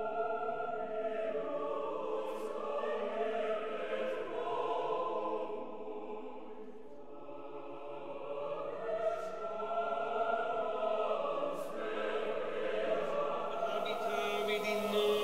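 Choir singing slow, sustained chant-like music, the voices held in long overlapping phrases that ease off briefly about seven seconds in before swelling again.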